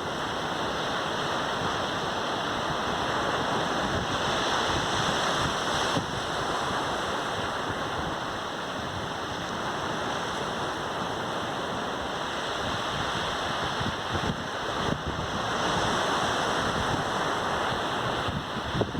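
Caribbean sea waves washing onto a sandy beach: a continuous rush of surf that swells louder twice, about four seconds in and again near fifteen seconds.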